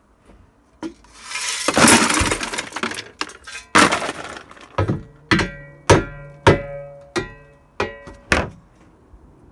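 Broken plastic toy-train pieces clattering off a steel shovel into a wheelie bin of cardboard and bottles, followed by about seven sharp knocks of the shovel blade against the bin, each with a short metallic ring, to shake off the last bits.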